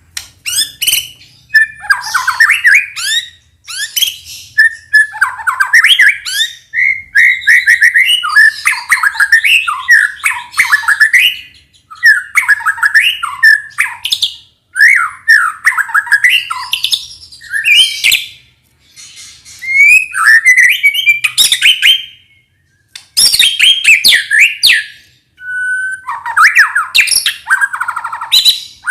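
White-rumped shama (murai batu) singing in full, rapid song: varied whistles, trills and harsh chattering notes packed with imitations of other birds. The song comes in bursts of several seconds broken by brief pauses.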